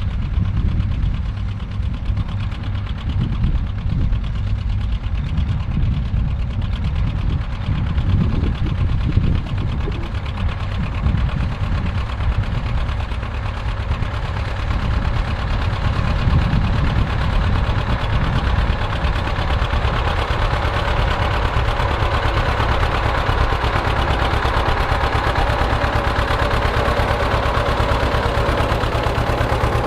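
Vintage John Deere tractor engine running steadily while pulling a plough, growing louder in the second half.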